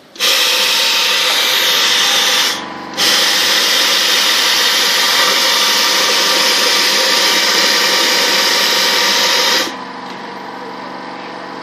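Tape bonding machine with edge trimmer running as it lays adhesive tape along the edge of underwear fabric: a loud steady noise that dips briefly about two and a half seconds in, then drops to a quieter steady hum near the end.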